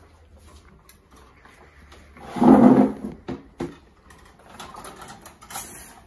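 Birdseed tipped from a plastic bowl into a plastic cage feeder cup: one loud rushing pour about two seconds in, then a few sharp plastic clicks as the feeder is handled and fitted onto the wire cage.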